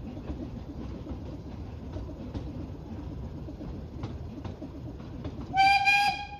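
Narrow-gauge steam train running, a steady rumble of carriage and wheels on the track. Near the end the locomotive's steam whistle gives one short blast, the loudest sound.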